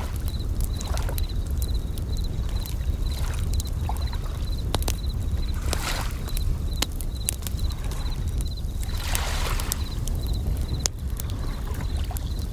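Bell crickets chirping in short, evenly repeated high trills over the crackle and sharp pops of a campfire, with waves washing in a low steady rumble and a couple of brief hissing surges.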